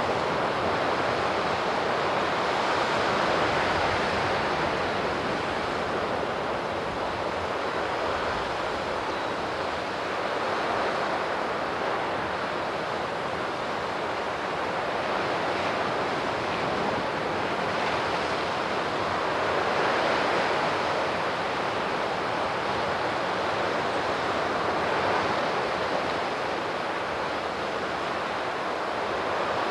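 Sea surf washing on the shore: a steady rush of waves that swells and eases every few seconds.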